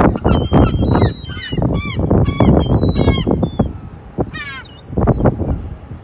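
Gulls calling: many short honking and squealing calls, with a quick run of calls a little past the middle, over a loud low rumble.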